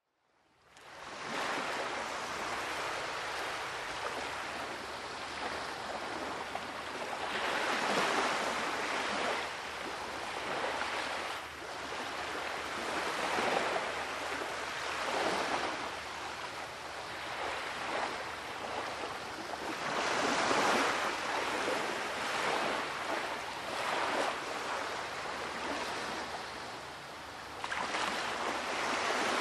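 Waves washing onto a shore, coming in slow surges that rise and fall every few seconds. The sound fades in over the first second or so.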